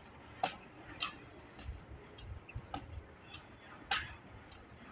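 Footsteps on a tiled walkway: a series of sharp clicks at an uneven walking pace, about one every half second to second, the loudest about four seconds in.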